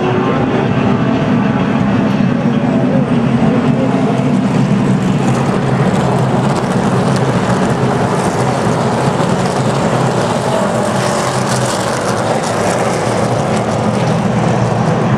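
A pack of NASCAR Camping World Truck Series trucks passing in formation, their V8 engines running in a loud, steady drone.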